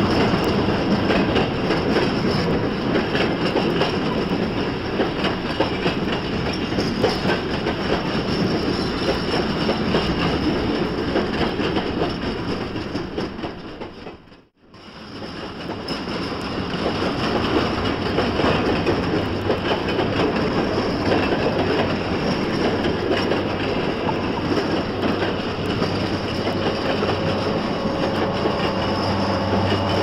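A Norfolk & Western Y-class 2-8-8-2 steam locomotive and its train running, a dense rumble with wheel clatter on the rails. The sound fades almost to nothing about halfway through and then fades back in. A steady low hum joins near the end.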